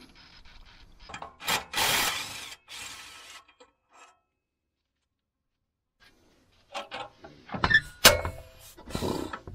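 A short hiss of aerosol penetrating oil sprayed onto rusty exhaust flange bolts about two seconds in. After a few seconds of near silence, a wrench works on the exhaust flange bolts with scraping, clicks and sharp metal knocks that ring briefly. The loudest knock comes about eight seconds in.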